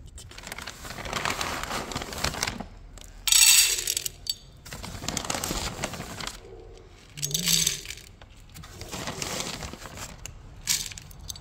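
Dry cat kibble rattling against a metal bowl in several bursts; the loudest and sharpest comes about three and a half seconds in.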